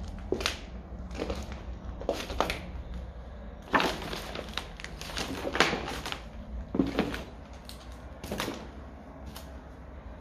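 Footsteps crunching over debris of paper, boards and broken fittings on a littered floor: irregular crackles and snaps, roughly one a second.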